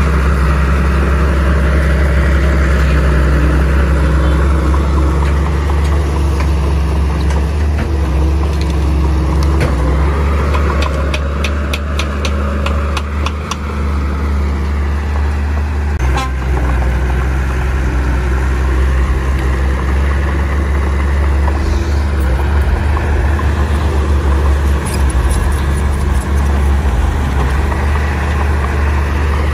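Heavy diesel engines of earthmoving machines running with a deep, steady hum, the engine note rising and falling slowly. A quick run of clicks comes partway through, and a single knock a few seconds later.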